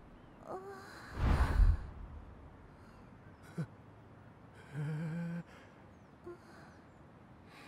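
A character's wordless breath sounds: a short breathy sigh about a second in, then a brief low flat hum near five seconds in.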